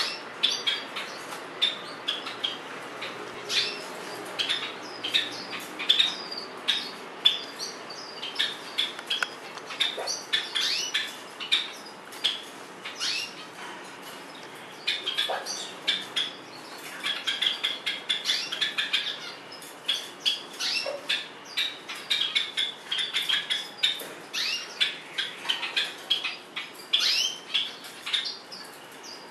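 White-eyes bathing among the leaves of a potted plant: quick, irregular wing flutters and rustling of leaves, mixed with short high chirps. It goes on without a break, busier in the second half.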